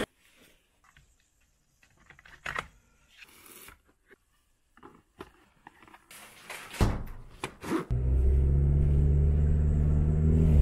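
Scattered rustles and knocks of packed camping gear bags being picked up and handled. About eight seconds in, a steady low drone of a car running, heard from inside the cabin, takes over.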